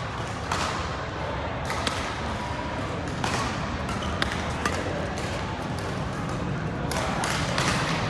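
Badminton rally: rackets striking a shuttlecock with sharp, crisp hits roughly a second apart, a couple in quick succession, over the murmur of a crowded sports hall.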